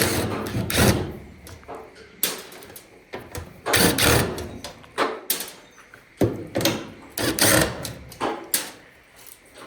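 Irregular knocks, clanks and scrapes of a clothes dryer's sheet-metal cabinet being handled while its panel screws are worked loose, about nine separate bangs.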